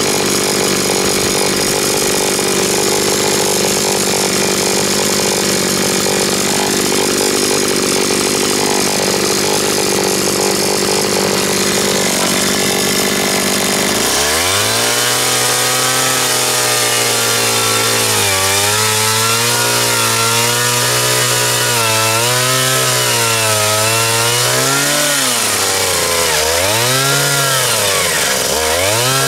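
Power tool motor running loud and steady, then from about halfway its pitch repeatedly sags and recovers as it is loaded, dropping deepest shortly before the end.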